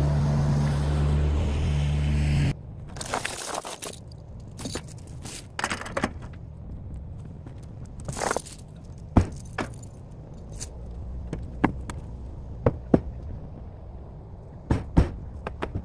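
An engine running steadily, shut off abruptly about two and a half seconds in, followed by scattered metallic clinks, rattles and knocks.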